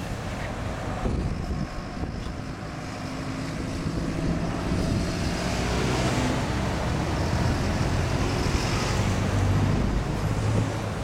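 Road traffic passing, with vehicle engines humming; the sound swells as a vehicle draws close in the middle and eases off near the end.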